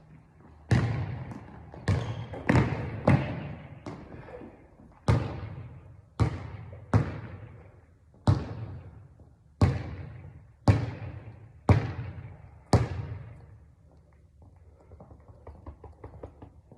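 Basketball bouncing hard on a court, about a dozen sharp bounces at uneven intervals of roughly a second, each followed by a short echo; fainter light taps near the end.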